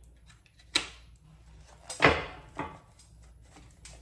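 Tarot cards being handled and laid down: a few sharp slaps and snaps, the loudest about two seconds in.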